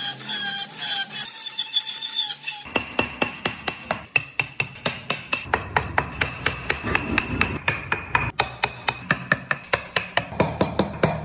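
Music for about the first two and a half seconds, then rapid, regular hammer tapping, about five blows a second, as in hand-carving wood.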